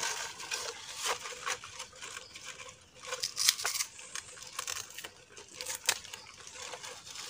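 Dry leaf strips tearing and crackling as they are pulled apart by hand, with irregular sharp snaps, the loudest about three and a half seconds in and again near six seconds.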